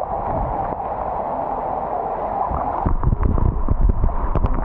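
Steady wash of rain and floodwater with wind buffeting the phone's microphone. The low rumble grows stronger with a few knocks from about three seconds in.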